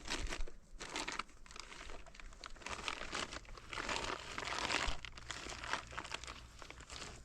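Irregular crinkling and rustling in uneven bursts, loudest about four to five seconds in.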